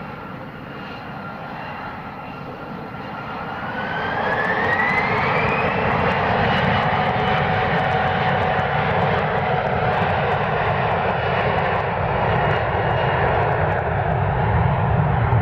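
Embraer airliner's turbofan jet engines spooling up to takeoff power: a whine rises in pitch from about three seconds in while the sound grows louder, then the engines run loud and steady at high thrust.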